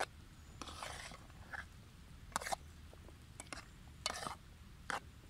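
A spoon stirring diced potatoes in a metal cooking pot: several short scrapes and a few light clicks of the spoon against the pot.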